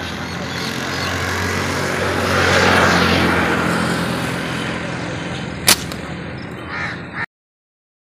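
Steady outdoor wind noise that swells in the middle, with one sharp click about six seconds in; the sound then cuts out abruptly.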